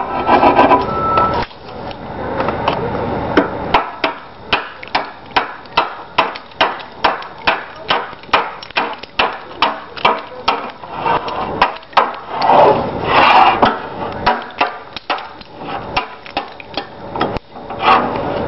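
Slate dresser's knife chopping along the edge of a large Westmorland green roofing slate laid over the bench iron, trimming it to shape: a steady series of sharp cracks, two or three a second.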